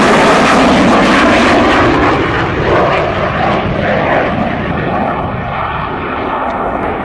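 Saab JAS 39 Gripen fighter's Volvo RM12 turbofan, a loud rushing jet roar with a deep rumble beneath, flying past in a display. Its high end fades from about two and a half seconds in as the jet draws away.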